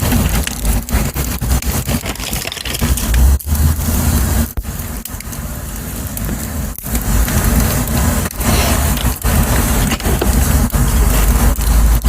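Dry twigs and wood burning at full blast in a small stove: a dense run of crackles and snaps over a steady low rumble.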